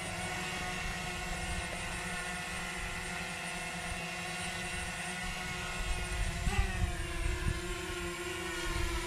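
DJI Mavic Mini quadcopter hovering, its four propellers giving a steady whine of several tones together. About six and a half seconds in, the pitch wavers up and back down as the motors change speed, then holds steady again.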